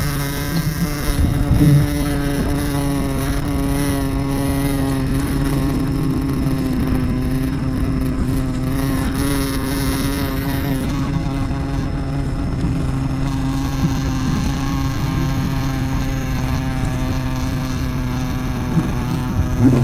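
Swarm of wild honeybees buzzing as a loud, steady, even hum.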